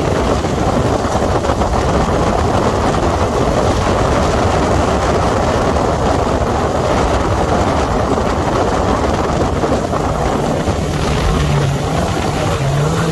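Sandrail (dune buggy) engine running steadily as it drives across the sand, under a loud, steady rush of wind noise on the microphone. The low engine hum grows stronger near the end.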